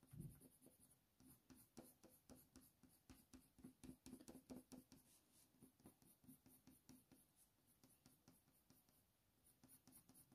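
Faint scratching of a colour pencil stroking quickly back and forth over hot-press watercolour paper, in many short strokes, as fur is drawn and burnished in. A soft low bump at the very start.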